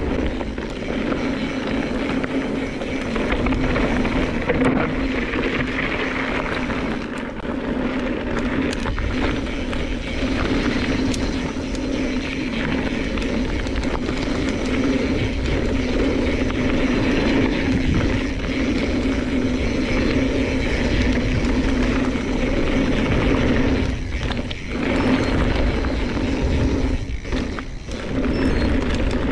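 Mountain bike rolling fast down a dirt trail: a steady hum from the tyres and bike with low wind rush on the camera microphone, dipping briefly twice near the end.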